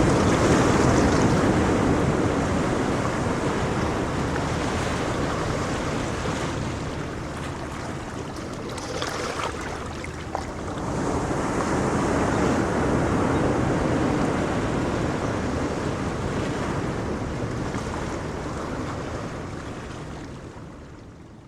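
Sea waves breaking and washing in, one swell near the start and another about halfway through. The sound fades away near the end.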